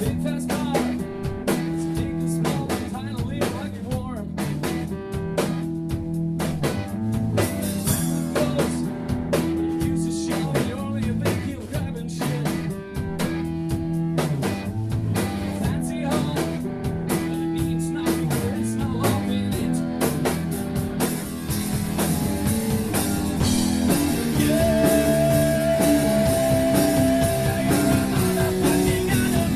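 Rock band playing: a repeating guitar and bass riff over drums. About two-thirds of the way in, the full band comes in louder with cymbals washing over it. Near the end a long note is held and then bends down.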